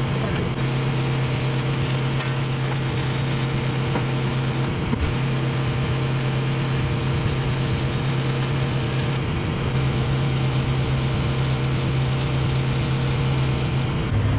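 Stick-welding arc crackling steadily while a root pass is laid on a steel stair-stringer splice, with the steady hum of an engine-driven welder running underneath.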